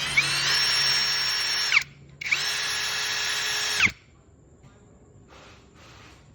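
Cordless brushless drill running free at a steady high whine, released with a quick falling spin-down, then triggered again for a second run of about a second and a half that also winds down.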